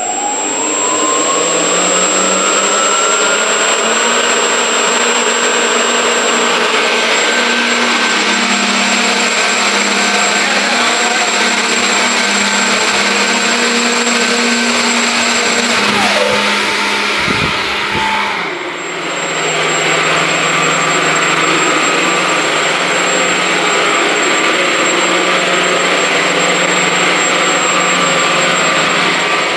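The electric motors and propellers of a foam RC hovercraft running: a whine that rises in pitch over the first few seconds as they spin up, then a steady loud whir with a thin high tone over it. A little past halfway the throttle drops briefly and the pitch glides down, then the motors run up again.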